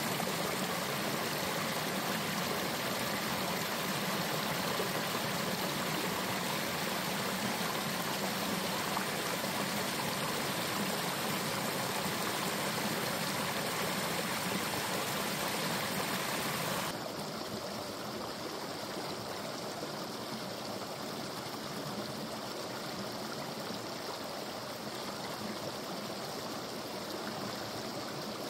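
Thawing mountain stream running and splashing over rocks beneath ledges of ice, a steady rush of water. About 17 seconds in it changes abruptly to a quieter, duller flow.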